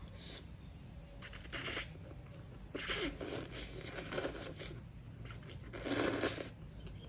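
Close-miked eating of chicken feet: three bursts of wet sucking, tearing and chewing, the longest in the middle.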